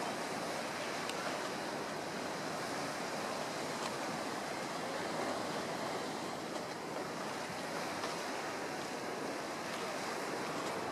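Steady wash of ocean waves: an even, unbroken hiss with no distinct events.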